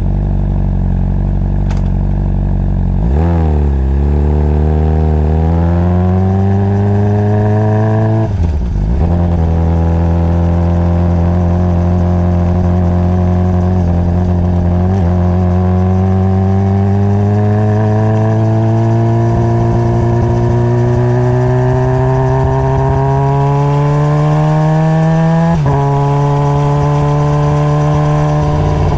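Honda CBR600RR's inline-four engine idling low, then pulling away about three seconds in with its pitch climbing under acceleration. It shifts up at about eight seconds, climbs slowly through the next gear for most of the clip, and shifts up again near the end before holding a steady cruise.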